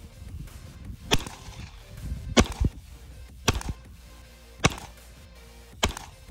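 Custom 2011 9mm pistol firing Federal 115-grain rounds: five slow, aimed shots about a second apart, fired offhand at a 25-yard target.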